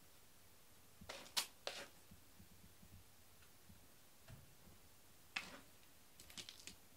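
A quiet room with a few short, sharp clicks and taps: two about a second in, one more a little after five seconds, and a few light ticks near the end.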